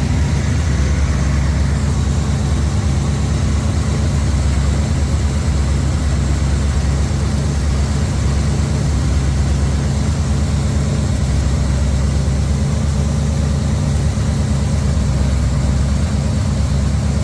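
Jeep J10 engine idling steadily and quietly with no knock, even though it has a bad cam bearing.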